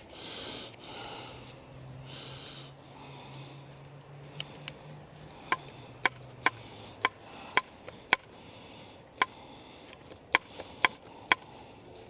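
Sharp metallic clicks and taps, about fifteen at irregular intervals through the second half, from the ground rod driver bit being worked into the chuck of an unplugged electric jackhammer. Before them, a few sniffs and breaths.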